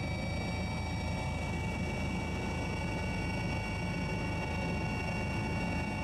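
Helicopter in flight: a steady, fast rotor beat under a high, multi-tone turbine whine.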